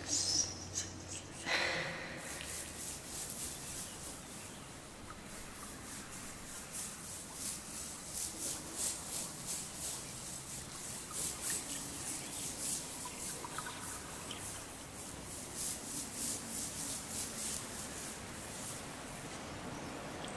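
A bag of citrine crystals shaken close to the microphone: a rapid, even, hissy rattle of several shakes a second. It starts about two seconds in and stops just before the end.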